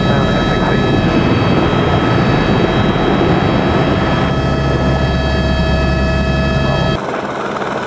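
Eurocopter AS350 B3 helicopter hover-taxiing low: a steady turbine whine made of several high tones over loud rotor and engine rumble. About seven seconds in, the whine cuts off and the sound drops to a quieter rumble.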